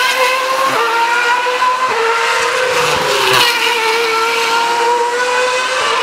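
2013 Formula 1 car's 2.4-litre V8 engine running at very high revs on the circuit, its pitch stepping sharply several times as the driver changes gear.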